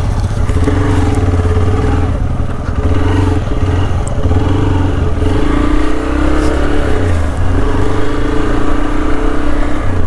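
Motorcycle engine running steadily under way at an even road speed, heard close from the rider's seat, its pitch drifting slightly, with a steady rush of road noise.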